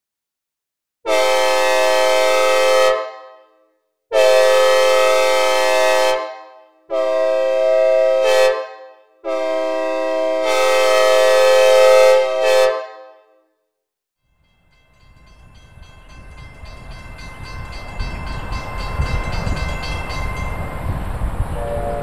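Synthesized Nathan K5LA five-chime train horn with reverb, sounding four blasts: long, long, short, long, the grade-crossing signal. After a pause, the rumble of an approaching train builds up with the horn sounding faintly, growing louder near the end.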